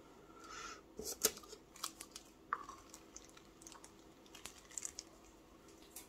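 Light clicks, crackles and scrapes from handling a plastic resin mixing cup and wooden stir stick with nitrile-gloved hands, the loudest tick coming just after a second in.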